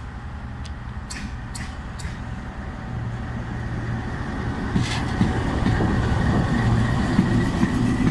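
Pakistan Railways GEU-20 diesel-electric locomotive running past close by, its engine rumble growing louder, with a steady high whine joining about halfway. A few sharp clicks sound in the first two seconds.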